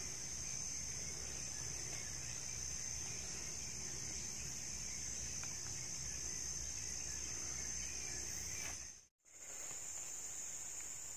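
Insect chorus trilling steadily at one high pitch. It breaks off for a moment about nine seconds in, then carries on.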